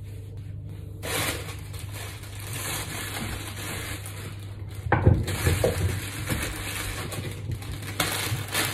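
Rustling and crumpling handling noise over a steady low hum, with a knock about five seconds in.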